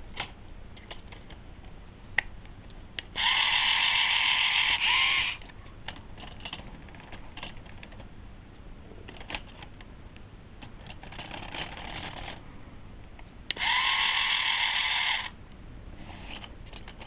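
K'NEX battery motor driving a plastic K'NEX gearbox, running twice for about two seconds each with a steady whir of motor and plastic gears. Between the runs, light clicks and rattles of plastic K'NEX parts being handled.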